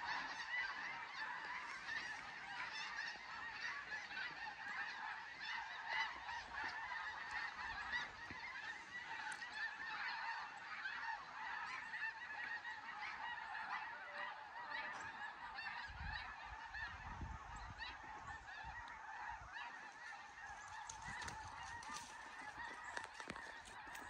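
A large flock of migrating geese calling overhead: a steady, faint chorus of many overlapping honks that never breaks.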